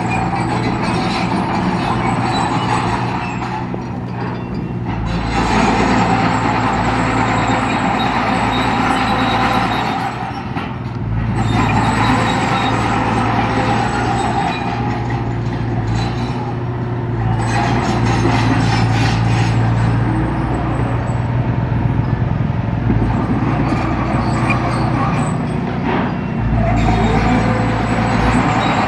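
Heavy diesel construction machinery running at work, the engine note dipping and picking up again every few seconds as the load changes.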